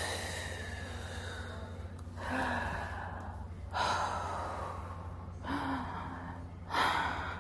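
A woman taking deep breaths in and out during a breathwork exercise, about five audible breaths a second or so apart, over a steady low hum.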